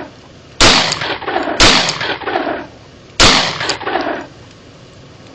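Glock 26 Gen 4 9mm subcompact pistol fired one-handed with 115-grain rounds: three single shots at a slow, uneven pace, each crack followed by about a second of echo.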